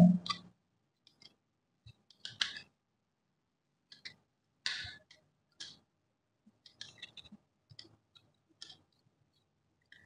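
Faint, irregular clicks and scrapes of a small screwdriver and copper wire against the terminals and plastic body of a double-pole switch, as the live wire is fitted and its terminal screw driven in.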